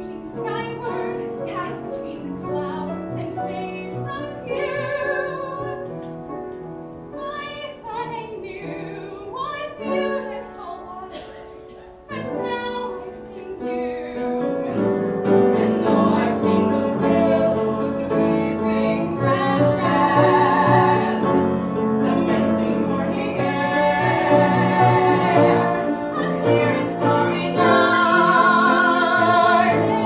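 A musical-theatre song sung live with instrumental accompaniment; it is lighter at first, dips briefly, then swells fuller and louder about halfway through.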